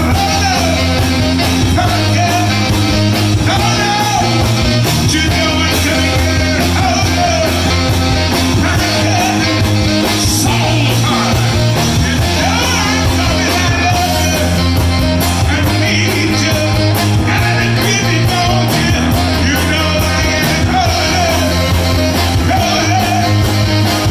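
Live soul band playing through a PA: drums keeping a steady beat, bass and electric guitar, with a male singer and saxophone over the top.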